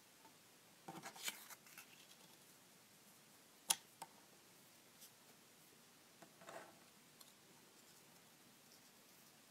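Paper cutouts being handled and pressed into place on a paper phone-screen prototype: faint paper rustles about a second in and again between six and seven seconds, and one sharp tick a little before four seconds, the loudest sound.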